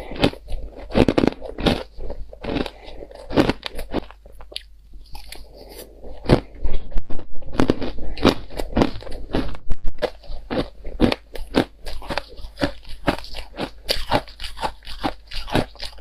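Shaved ice being chewed close to the microphone: an irregular run of crisp crunches, several a second, louder from about six seconds in.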